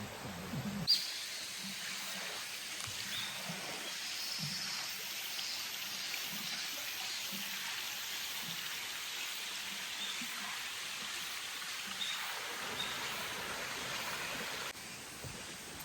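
Mountain stream rushing steadily, an even wash of water noise.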